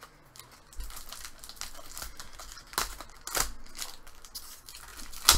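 Foil wrapper of a hockey card pack crinkling as it is handled and torn open, with a few sharp rips, the loudest near the end.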